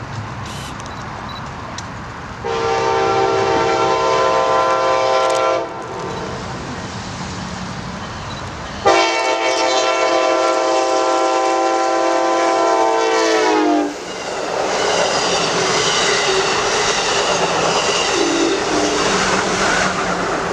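Union Pacific freight locomotive's air horn sounding two long blasts as a chord of several tones: one of about three seconds starting a couple of seconds in, and a longer one from about nine seconds in that sags in pitch as it ends. After it, steady rushing noise of the oncoming train.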